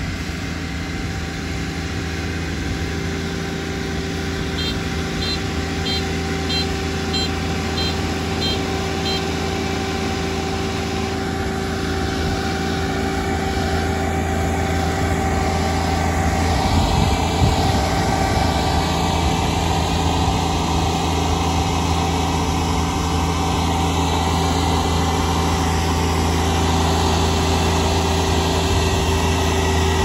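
Kubota Dynamax ER470 combine harvester's diesel engine running steadily with its unloading auger working, a constant hum that grows gradually louder. A faint run of short evenly spaced beeps sounds about four seconds in.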